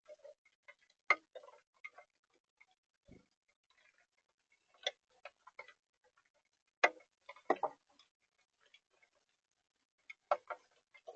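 Irregular sharp taps and clicks, about a dozen, spaced unevenly with near silence between them, and one duller thump about three seconds in.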